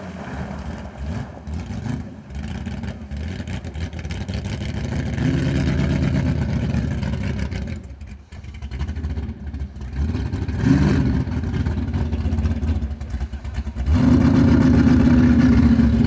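Lifted Chevy pickup mud racer's engine running at low speed, with short revs about five and eleven seconds in, then a louder steady engine note from about fourteen seconds.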